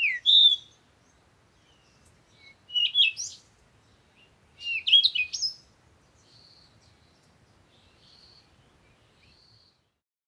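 Birds chirping: three short bursts of bright, sliding chirps and trills in the first six seconds, then a few fainter calls that stop shortly before the end.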